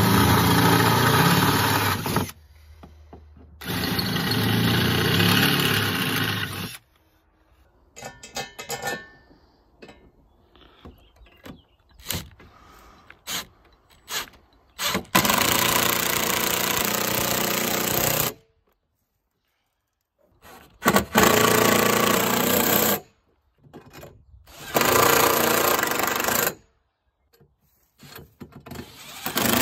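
A Makita cordless drill boring out holes in steel fence top-rail tubing in two steady runs of a few seconds, then a cordless impact driver hammering lag screws through the tubing into the deck in several bursts of two to three seconds, with handling clatter in between.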